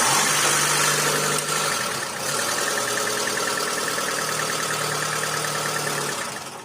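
Hyundai Accent's petrol/CNG four-cylinder engine running steadily just after being started, with its tappet cover freshly refitted, then switched off near the end.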